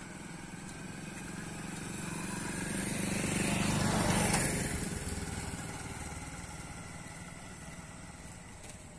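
A motor vehicle passing by, growing louder to its peak about four seconds in and then fading away.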